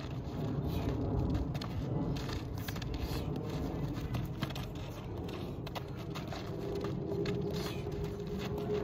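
Sneakers scuffing and a soccer ball being tapped and dragged on gritty sand as a boy dribbles, a string of short scrapes and taps over a steady low rumble. A faint steady hum comes in about two-thirds of the way through.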